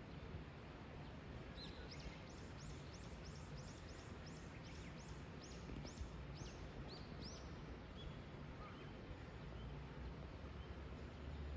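A small bird sings a run of about fifteen quick, high, down-slurred notes, then gives a few fainter scattered chirps. Under it is a low, steady background hum.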